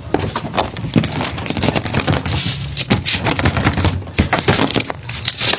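A rapid, irregular run of sharp clicks and crackles, with a low hum underneath.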